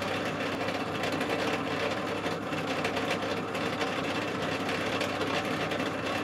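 Pillar drill running steadily while a 2.5 mm drill bores blind holes to a set depth in an aluminium block.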